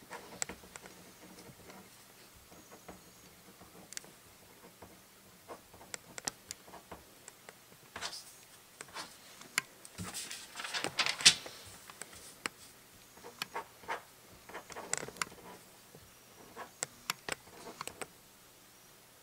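Sheets of paper being handled and shuffled on a tabletop, with scattered light taps and clicks, including from a ballpoint pen. The longest, loudest rustle comes about ten to eleven seconds in.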